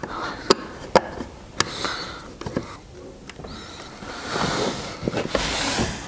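Hand work on a plastic electrical enclosure with a screwdriver: several sharp clicks and taps in the first couple of seconds, then a rustling hiss near the end.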